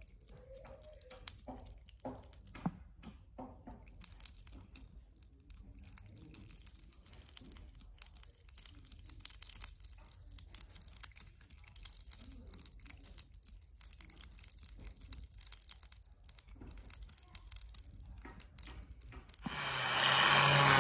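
Faint crackling, ticking and dripping from a hot, freshly weld-built steel gear as it is cooled and steams. Near the end a much louder, dense sound starts suddenly.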